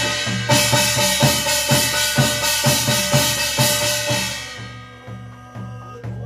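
Korean barrel drum (buk) beaten with a stick in a quick, steady rhythm, keeping time for a shaman's gosa chant. A bright ringing sustains over the strokes and dies away after about four seconds, and the drumming grows softer near the end.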